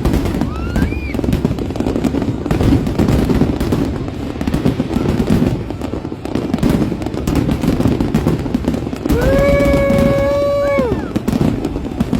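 Fireworks show: a dense run of bangs and crackling bursts in quick succession. About nine seconds in, a horn sounds one steady blast lasting nearly two seconds over the bursts.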